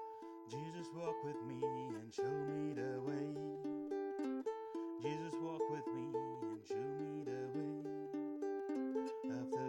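Enya E6 solid maple tenor ukulele played acoustically, picking a repeating chord pattern. A lower sustained part runs beneath it from about half a second in.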